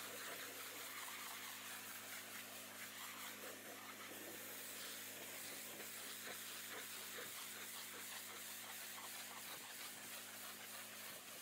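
Pressure-washer jet rinsing snow foam off a van's bodywork: a steady spraying hiss of water on metal, with a steady low hum underneath.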